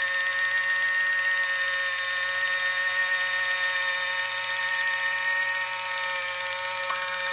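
Battery-powered electric can opener running, its small motor and gears giving a steady, even whine.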